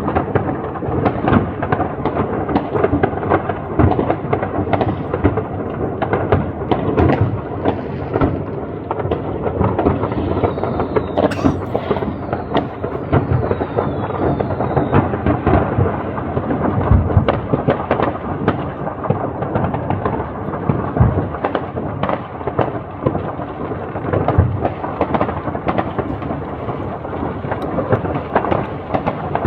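Dense New Year's Eve fireworks: many rockets and firecrackers banging and crackling at once, merging into a continuous rumbling din. A few falling whistles from whistling rockets sound about a third of the way in.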